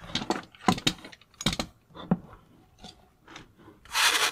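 Unboxing handling noises: a string of short knocks and clicks as the light head and packaging are handled, then a loud crunching rustle of packing material near the end as hands dig into the cardboard box.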